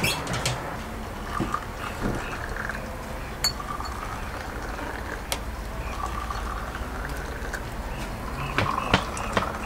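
Water pouring from a samovar tap into small glasses on a metal tray, over a steady low rumble, with a few sharp clicks, most around the start and near the end.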